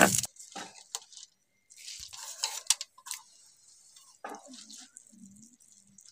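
Water sloshing and squishing as a hand stirs soaked split urad dal in a plastic tub, after a short loud noise right at the start.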